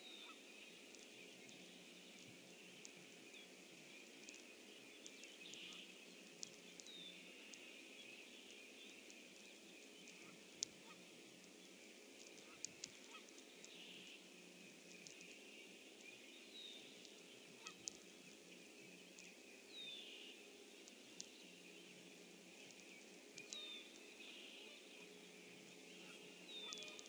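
Faint marsh ambience: a steady high-pitched chorus, short falling bird calls every few seconds, and a few sharp clicks.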